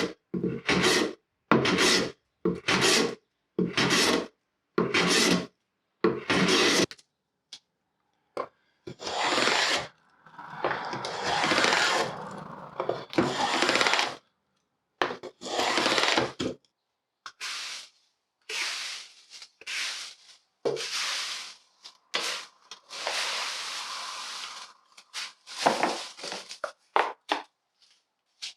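Hand tools working mahogany boards, wood rasping under each stroke. First comes a run of short, even strokes about one a second, then longer strokes, then irregular ones, each cutting off abruptly.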